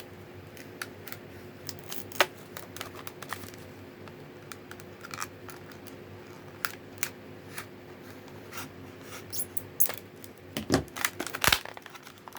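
Serrated knife blade cutting open product packaging: irregular clicks, scrapes and crinkles of plastic and card, coming faster and louder near the end.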